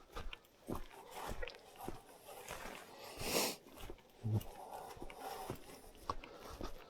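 Footsteps on a wet path, a soft step roughly every two-thirds of a second, with a short breathy rush about three seconds in and a low thump a second later.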